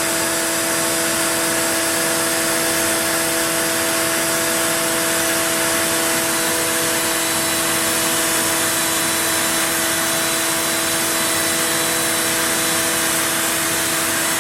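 CNC router spindle and shop vacuum dust collection running together. It is a steady, unchanging whine over a loud rush of air.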